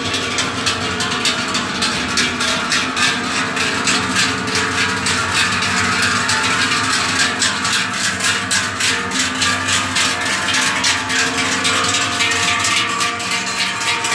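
Many large cowbells on a passing herd of cows clanging and ringing continuously in a dense, jangling wash of overlapping strokes, growing busier as the cows walk past close by.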